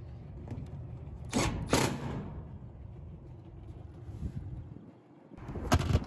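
A sheet-metal access panel on a rooftop HVAC package unit being fastened with a cordless drill and screw: two short, sharp bursts about a second and a half in, and another near the end, over a low steady rumble.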